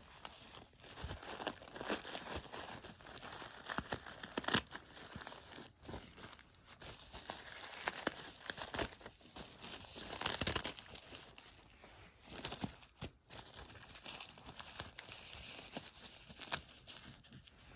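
Plastic wrapping of sanitary pads crinkling and tearing in irregular bursts as the pads are unwrapped and handled.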